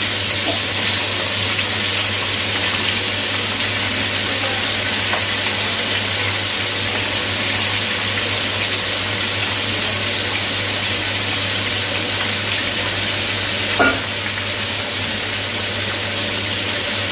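Hot oil sizzling steadily in a wok as flour-coated corn pieces deep-fry, over a steady low hum. One brief knock late on.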